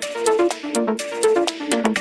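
Background electronic music with a steady beat and a repeating melody.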